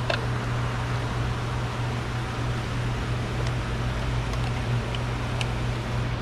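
Steady electric-motor hum with an even air hiss, as from a running fan, and a few faint light clicks.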